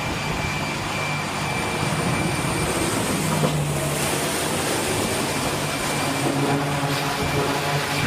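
E-2D Hawkeye's twin T56 turboprop engines running with their eight-blade propellers turning: a steady low propeller hum under a thin high turbine whine and a rushing hiss.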